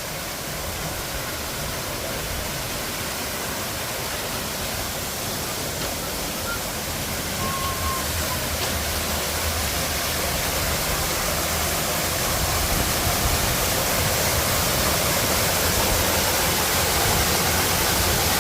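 Scale Force waterfall rushing, a steady noise of falling water that grows gradually louder toward the end.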